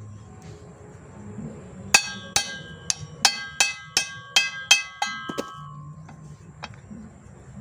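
Claw hammer striking the yoke of a Toyota Kijang propeller shaft to drive a new cross joint (universal joint) into place: about ten sharp blows, about three a second, starting about two seconds in, each ringing briefly.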